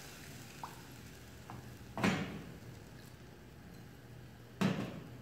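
Wooden spatula knocking twice against the side of a nonstick kadai while stirring a thin, boiling gravy, about two and a half seconds apart, with a couple of faint clicks before the first knock.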